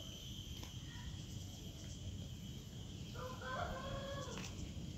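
A rooster crowing once, a call of a little over a second starting about three seconds in.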